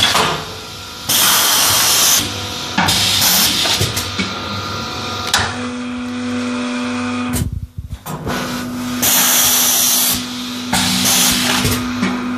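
Semi-automatic pneumatic paper baking mold machine cycling: several loud hisses of compressed air, each about a second long and a few seconds apart, over a steady machine hum, with a low steady tone joining about halfway.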